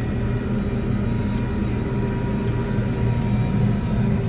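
Combine harvester running steadily while harvesting wheat: a constant mechanical drone with several steady tones over a low rumble.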